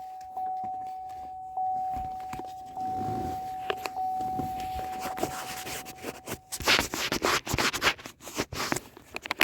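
A vehicle's electronic warning chime on one steady pitch after the ignition is switched on, struck again several times about a second apart. It stops about two-thirds of the way through, and rustling and clicking of handling follow.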